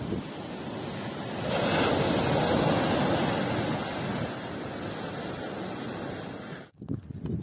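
Sea waves breaking and washing up on a pebble beach, a steady surf that swells louder as a wave breaks about two seconds in. The sound cuts off abruptly near the end.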